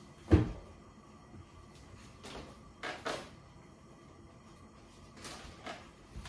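A pantry door opening with one sharp thud about a third of a second in, followed by a few softer knocks and rustles.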